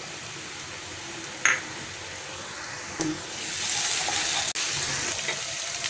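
Oil sizzling in a pan of frying brinjals and onions, with a tap or two as ginger-garlic paste is dropped in; about three seconds in the sizzle grows louder and stays up as a wooden spatula stirs the pan.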